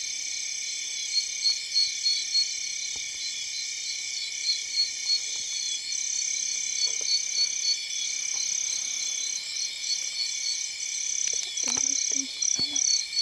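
Night chorus of rainforest insects and frogs: a steady wall of high-pitched trilling and shrilling, with pulsing calls that stand out now and then. Near the end come a few short, lower sounds.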